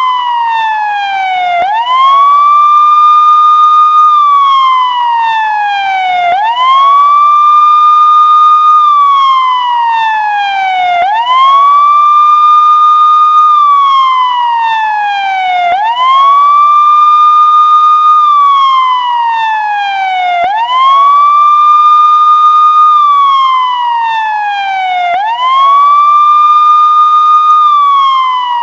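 Police siren in a slow wail. The pitch sweeps up quickly, holds high for a couple of seconds, then slides steadily down before it sweeps up again, repeating about every four and a half seconds.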